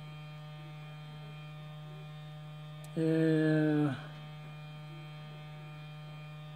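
Steady electrical hum with many even overtones. About three seconds in, a man gives a short hummed 'mm' lasting about a second that drops in pitch at its end.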